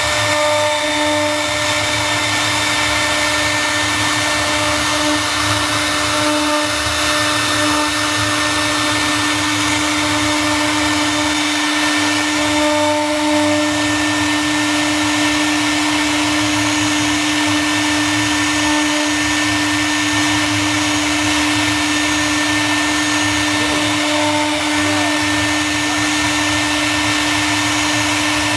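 Wood CNC router's 3.0 kW water-cooled spindle running steadily as it engraves wood: a constant whine over a steady hiss.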